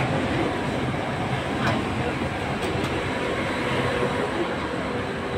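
Bangkok MRT Blue Line subway train standing at the platform with its doors open: a steady hum and rumble, with a sharp knock about a second and a half in.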